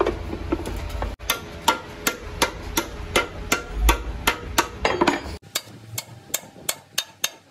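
Hammer tapping on the metal bearing cap of an Isuzu truck's rear differential carrier, a rapid steady run of sharp taps, about four a second, while the part is driven into place.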